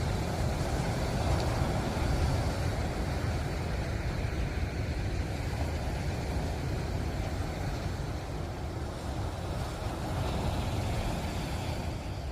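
Ocean surf: waves breaking and washing in a steady, deep rumble that swells slightly about two seconds in.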